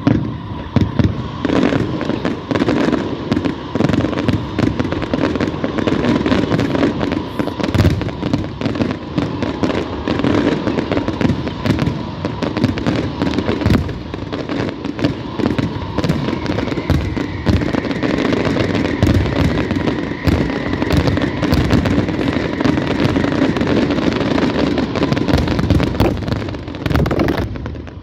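Fireworks display: an unbroken barrage of shell bursts, bang after bang in quick succession, with no pause.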